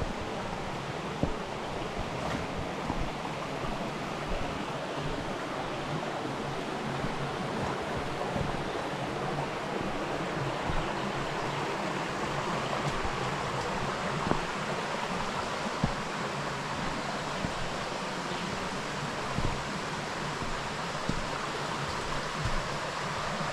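Steady rush of flowing river water, with occasional soft thumps scattered through it.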